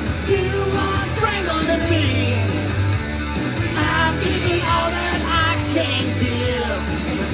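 Rock song with a singing voice and guitar playing back from a record.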